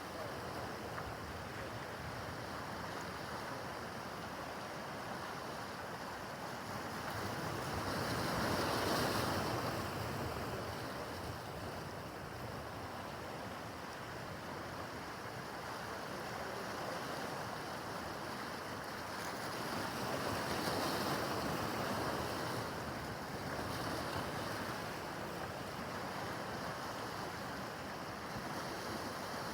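Rough harbor water: waves washing and breaking in a steady rush, swelling louder about eight seconds in and again about twenty seconds in, with wind on the microphone.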